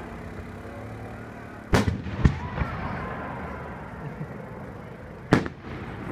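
Aerial fireworks going off: three sharp bangs, two close together about two seconds in and one more near the end, over a steady background hiss.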